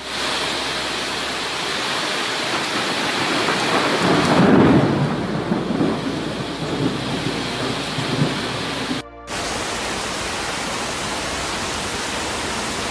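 Roar of a muddy flash-flood torrent rushing past, swelling with a deep rumble about four to six seconds in. After a brief drop just past nine seconds, a steadier rush of flowing water and rain.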